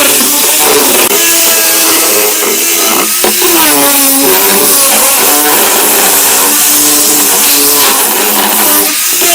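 Electric power tool motor running loudly while cutting wood, with a steady whine over a strong hiss. About three seconds in, its pitch sags and then recovers, as the motor does under load.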